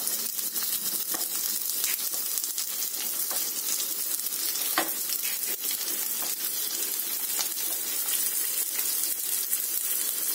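Oil sizzling steadily in an appam pan as stuffed sabudana kachori balls shallow-fry in its cups, with a few faint knocks as they are set down.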